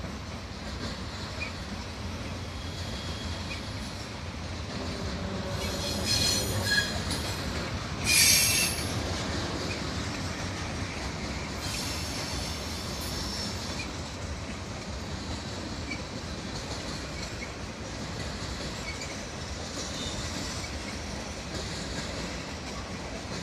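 Freight cars of a mixed freight train (intermodal flatcars, a tank car, covered hoppers) rolling past with a steady rumble of wheels on rail. High-pitched wheel squeal rises out of it twice, loudest about six and eight seconds in, with fainter squeals later.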